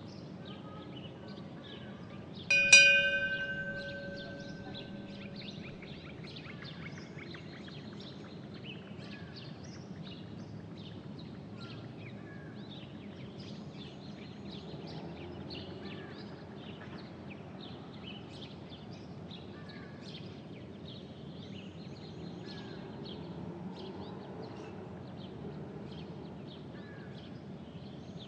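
Outdoor ambience with small birds chirping throughout. About three seconds in, a single loud chime strikes and rings out, fading over a few seconds.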